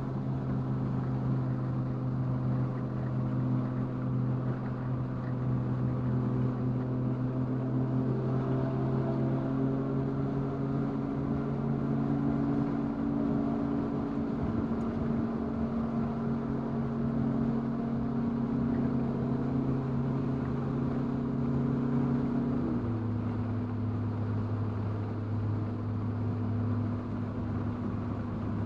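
2019 VW Golf R's turbocharged four-cylinder engine running at a steady engine speed. About 23 seconds in, its note drops suddenly to a lower steady pitch.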